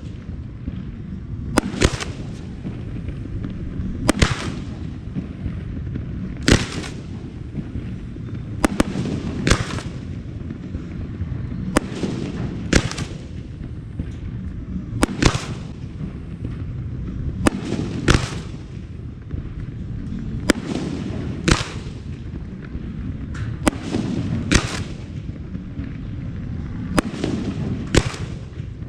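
Aerial fireworks display: about twenty sharp bangs of shells bursting, one every second or two, over a steady low rumble of reports and echoes between them.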